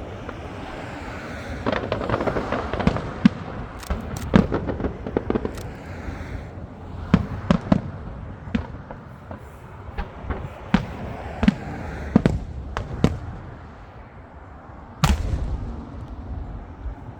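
Aerial fireworks bursting in rapid, irregular succession, sharp bangs and crackles over a rumbling haze, with one especially loud bang about fifteen seconds in.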